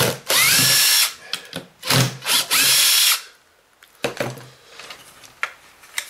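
Makita 18V cordless impact driver backing out the two screws that hold the vacuum's motor in place: two short runs, each with a whine that rises as the motor spins up and then holds. After them come light clicks and knocks as the loosened machine is handled.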